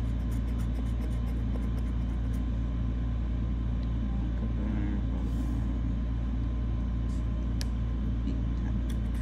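A steady low hum runs underneath faint scraping of a metal pick on a scratch-off lottery ticket, with light scrapes in the first couple of seconds and again near the end.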